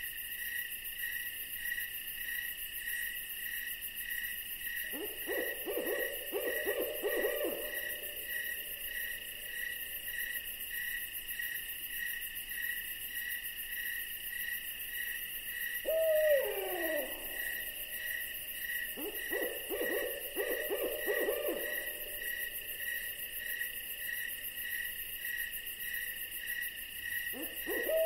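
Night ambience: an owl calling, twice with a long quavering trill and twice with a descending whinny. Beneath it a steady, pulsing chorus of crickets.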